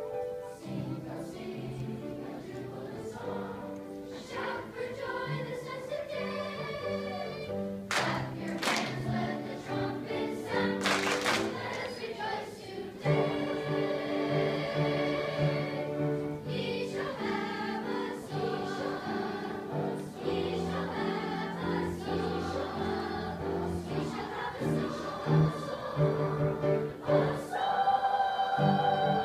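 Children's choir singing a sustained, slow-moving song with piano accompaniment underneath.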